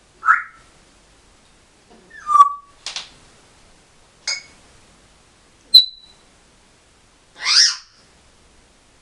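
African grey parrot giving a string of about six short calls with pauses between them: brief whistles, one gliding down and then held, a sharp click, and a longer squawk near the end.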